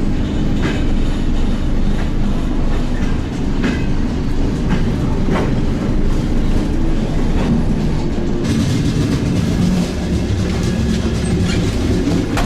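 An old Soviet-built electric commuter train (elektrichka) running, heard from inside a carriage. There is a steady rumble and motor hum, with wheels clicking over the rail joints every second or two. A louder hiss comes in about eight seconds in.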